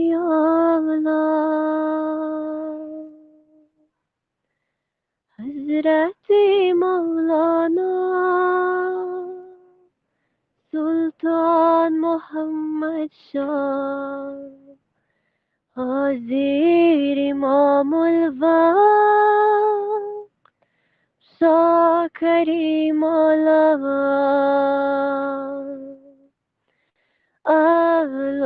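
Unaccompanied solo voice singing a devotional munojot in slow, drawn-out phrases of a few seconds each, with short silences between them, about six phrases.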